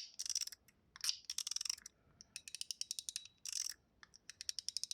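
Ling Yun 3.0 mechanical fidget slider, blackened zirconium and brass, being slid back and forth so its spring-loaded ball snaps through the detent indents: sharp clicks in quick runs of about ten a second, with short pauses between runs.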